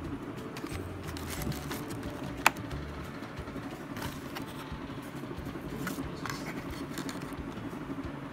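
Plastic bags and a foil takeaway tray being handled close to the microphone, rustling and crinkling, with a sharp click about two and a half seconds in.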